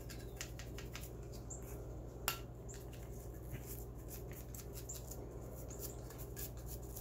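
Small bristle brush scrubbing grime off the rusty steel action parts of an old shotgun: rapid, scratchy strokes with one sharper click about two seconds in, over a steady low hum.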